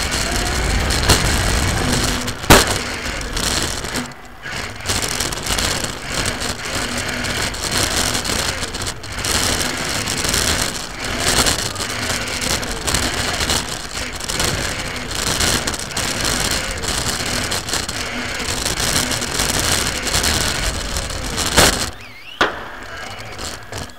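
Onboard sound of a radio-controlled racing car at speed: a steady noisy rush of motor, gears and tyres, dipping briefly when it lets off. A sharp knock comes about two and a half seconds in and another near the end.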